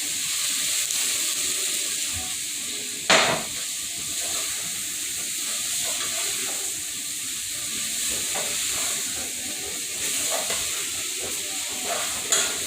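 Chicken frying in a hot pan, a steady sizzle, with the food being stirred and pushed around. Two sharp knocks ring out, one about three seconds in and a second near the end.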